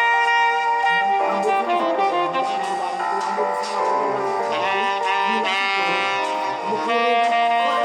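Background music with saxophone and brass melody lines, jazz-like.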